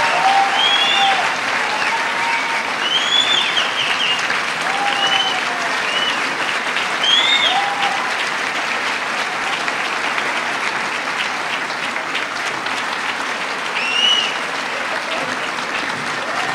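Audience applauding steadily at a curtain call, with scattered cheers over the clapping that rise and fall in pitch, most of them in the first half.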